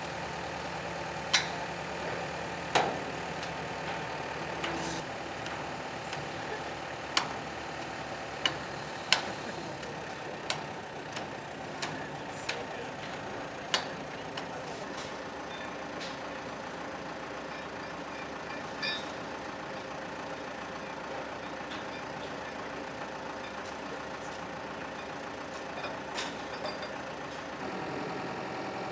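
Large engine of heavy equipment idling steadily, with a series of sharp metallic knocks and clanks over it, most of them in the first half.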